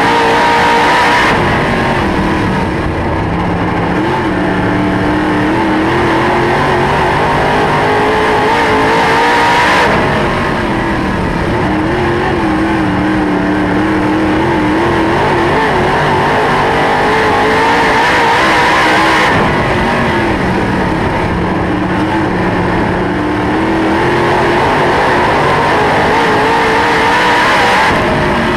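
Dirt late model race car's V8 engine at racing speed, heard from inside the car: the engine note climbs slowly, then drops off sharply as the throttle is lifted, about every nine seconds, four times.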